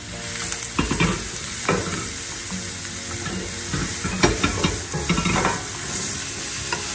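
Chopped onion and bell pepper sizzling in hot oil in a frying pan, stirred with a wooden spatula, with several short scrapes and knocks of the spatula against the pan.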